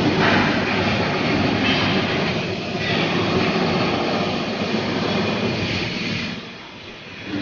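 Loud steady rushing machine noise that starts suddenly and eases off about six seconds in.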